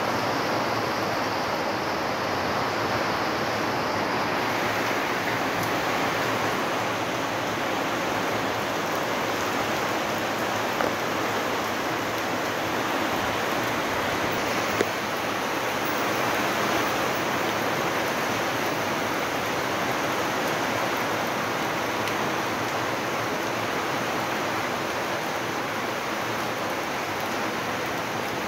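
Heavy rain falling steadily, an even unbroken wash of noise.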